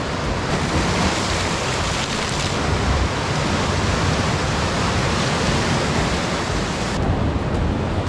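Sea surf breaking and washing over boulders and cobbles on a rocky shore: a steady rushing wash. The high hiss turns duller about seven seconds in.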